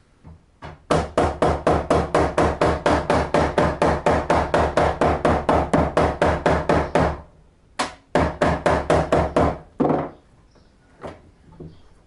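Mallet striking a stainless steel mesh grid on a wooden workbench. There is a fast, even run of blows, about four a second for six seconds, then a short pause, a single blow and a second shorter run, ending with a few faint taps.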